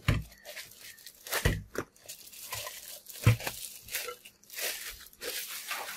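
Clear plastic bag crinkling and rustling as it is handled and pulled off a bathroom scale, with two dull knocks, the louder about three seconds in.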